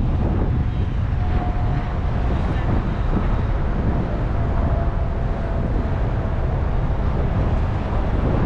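Wind buffeting the microphone as a steady low rumble, with a faint steady hum drifting in and out.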